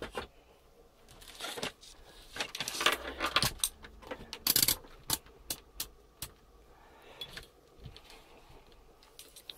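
A digital multimeter and its test leads being handled and set down on a workbench: rattling and clattering for a few seconds, then a quick series of sharp clicks.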